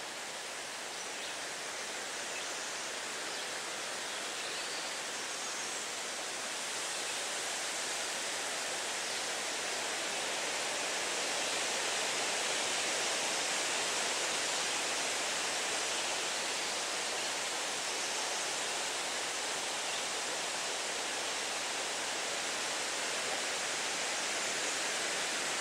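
Wind rushing through forest trees, a steady hiss of leaves and branches that slowly swells over the first ten seconds or so and then holds.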